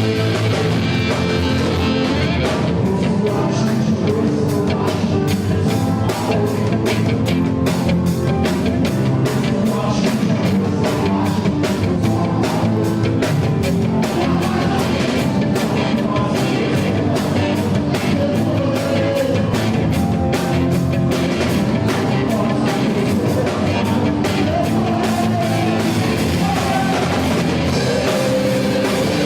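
Live gospel rock band playing hard and loud, with a fast, driving drum kit, electric guitars and singing.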